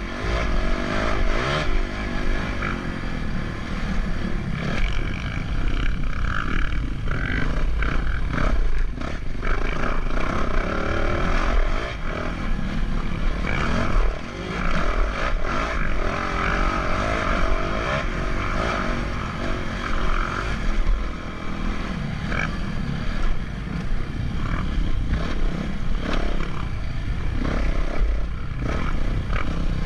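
A vehicle running continuously, with a heavy low rumble and a wavering engine note.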